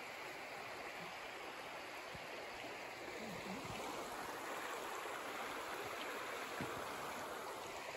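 Shallow woodland stream running over rocks and riffles, a steady rushing babble of water. It grows a little louder about three seconds in and eases again near the end.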